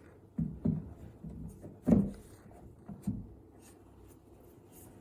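Canvas wall panel knocking and rubbing against a wall while it is being handled into place: about five dull knocks at irregular intervals, the loudest about two seconds in.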